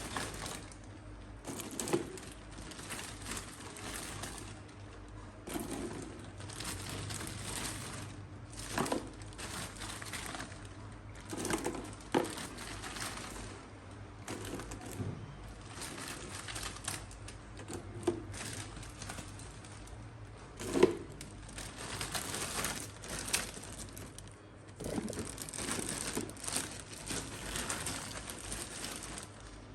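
Irregular light clicks and rustling from close-up handling of small objects, with a few sharper ticks and a steady low hum underneath.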